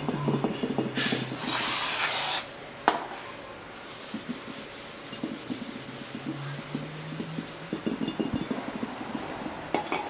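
A rag wiping a new brake rotor to clean off its oily warehouse coating. There is a loud hiss lasting about a second just after the start and a sharp click soon after, then quieter scrubbing with small clicks.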